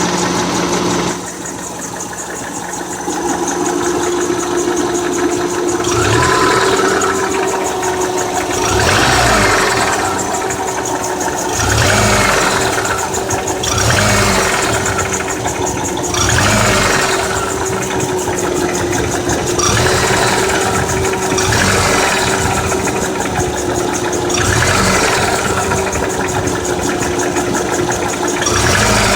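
Subaru 2.5-litre flat-four engine running with a knocking, ticking noise, its loudness swelling every few seconds. The owner says it is not piston slap and thinks something has come loose.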